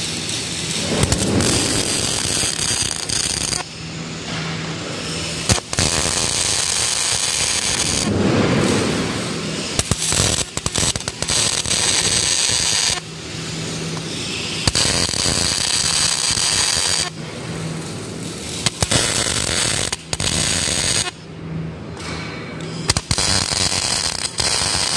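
MIG welding arc crackling as nuts are welded one after another onto a steel plate. The crackle comes in bursts of a few seconds with short breaks between welds.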